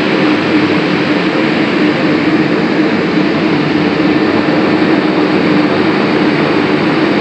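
Four-engine turboprop transport plane taxiing, its engines running in a loud, steady drone with a constant hum.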